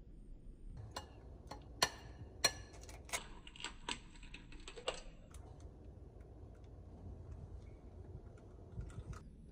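Irregular sharp taps and clicks of kitchenware being handled, about a dozen in some four seconds, each with a slight ring. Then they stop.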